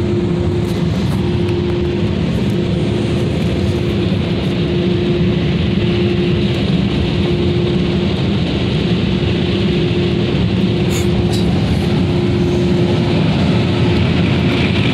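Dryer blowers of a Ryko Softgloss Maxx automatic car wash running: a loud, steady rush of air with a constant hum, heard from inside a pickup's cab.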